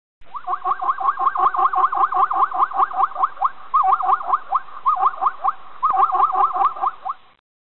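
An animal calling in a rapid series of short rising notes, about six a second, broken by a few brief pauses.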